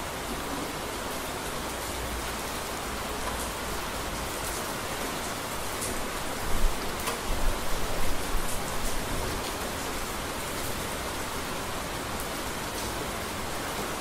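Steady rain falling. A low rumble of thunder rises about six and a half seconds in and dies away by about nine seconds.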